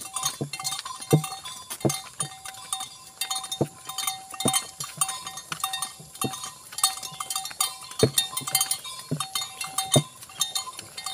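Ox-drawn wooden cart on the move: sharp knocks at an uneven pace of about one a second, with a thin ringing tone sounding between them.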